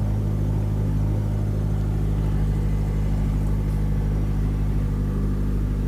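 Honda Civic Si's 2.0-litre four-cylinder engine idling steadily, heard from inside the cabin, shortly after a cold start on newly fitted stiffer Boomba aftermarket engine mounts.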